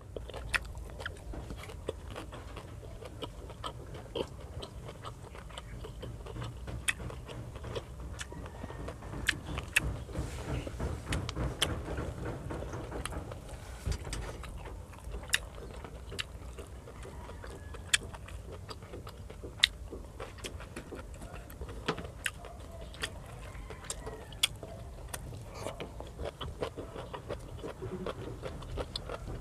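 Close-miked mouth sounds of a person chewing fried fish and rice: wet smacks and sharp clicks, spaced unevenly, over a low steady hum.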